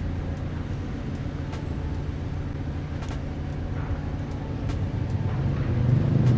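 Lamborghini Aventador's 6.5-litre V12 engine running while the car is under way, a steady low drone that grows louder near the end.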